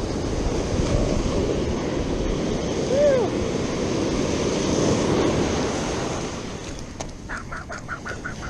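Ocean surf breaking and washing up the beach, swelling through the middle and easing off toward the end, with wind buffeting the microphone. A brief arched squeak sounds about three seconds in, and a quick run of about six short chirps near the end.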